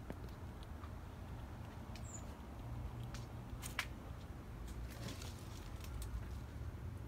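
Faint scattered clicks and scratches from a fox squirrel in a tree, over a steady low rumble. A single brief high chirp comes about two seconds in.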